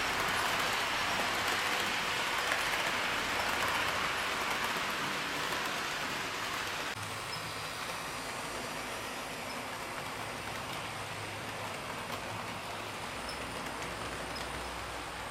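HO-scale model train rolling along its track: a steady rushing noise of small metal wheels on the rails, louder in the first half and somewhat quieter from about seven seconds in.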